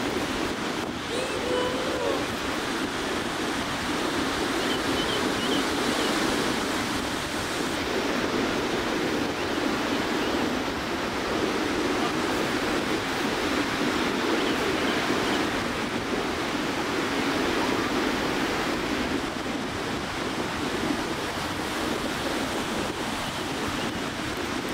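Pacific Ocean surf breaking on a sandy beach: a continuous wash of waves that swells and eases a little.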